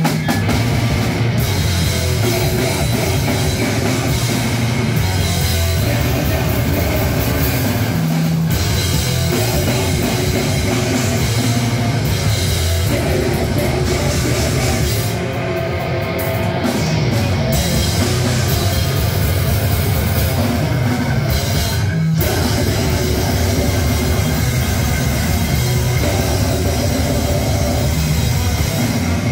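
Grindcore band playing live: distorted electric guitar and bass guitar over fast drums, with a vocalist screaming into the microphone. The band cuts out for an instant twice, about eight and twenty-two seconds in.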